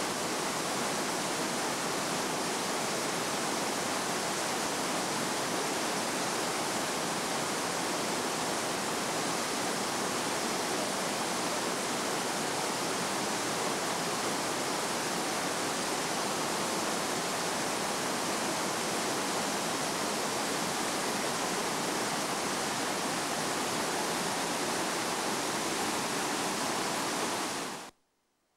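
Terraced waterfall cascades rushing, a steady even roar of falling water that cuts off suddenly near the end.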